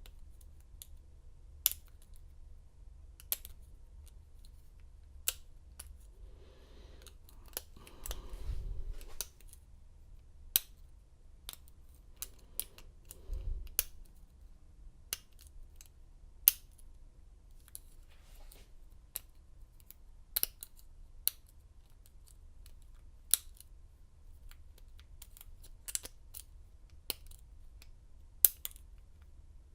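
Lock picks working the pins of an American Lock 1100 padlock: irregular sharp metallic clicks and ticks, with a couple of brief handling rustles in between.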